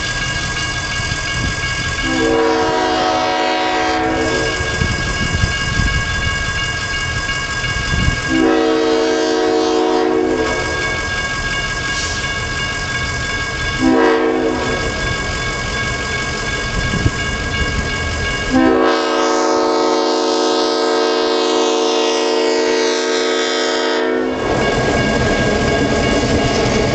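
EMD GP-series diesel locomotive horn blowing the grade-crossing signal, long, long, short, long, the last blast held about five seconds, over a railroad crossing bell ringing steadily. In the last couple of seconds the locomotives reach the crossing with engine and wheel-on-rail noise.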